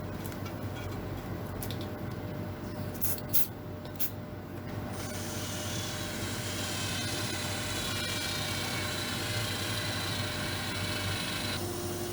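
A tool working metal, most likely on the aluminium build plate: a couple of sharp clicks, then steady rubbing, grinding noise starting about five seconds in and stopping abruptly near the end.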